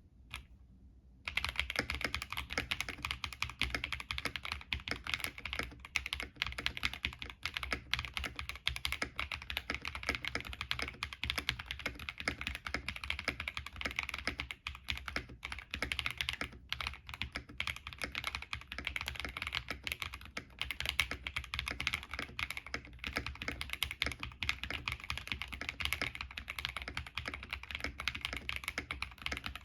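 Continuous fast typing on an Epomaker TH66 mechanical keyboard with Leobog Greywood V3 linear switches, tape-modded and case-dampened, giving a muted, deep clack under PBT keycaps. The typing starts about a second in.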